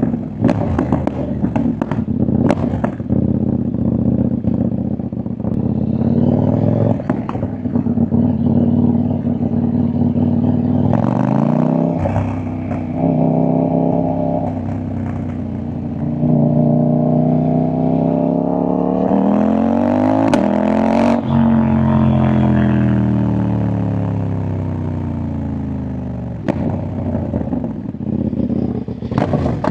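CFMoto 800NK parallel-twin engine and exhaust under way: pops and crackles on the overrun in the first few seconds, then the revs climb twice through the gears. About two-thirds through, a long rise in pitch cuts off sharply and winds down as the throttle closes, with a few more crackles near the end.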